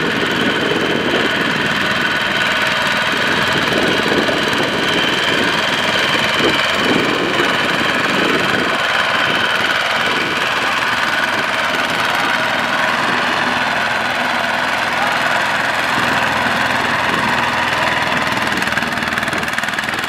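Two-wheel walking tractor's single-cylinder diesel engine running steadily under load, pulling a trailer of rice sacks bogged in mud.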